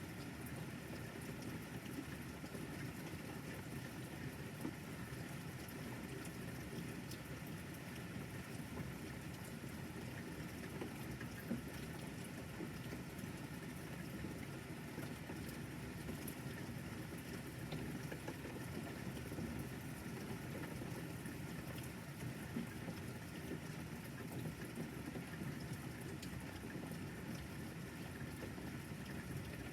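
Steady rain falling, with scattered small drop ticks.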